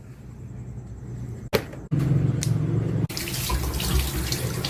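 Water running from a tap, coming on about three seconds in as a steady hiss, with a low hum and a couple of sharp clicks before it.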